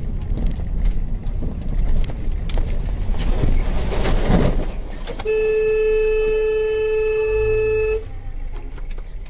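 Road and engine noise from inside a moving car while a flatbed truck runs very close alongside, swelling about four seconds in; then a vehicle horn is held in one steady tone for nearly three seconds and cuts off sharply.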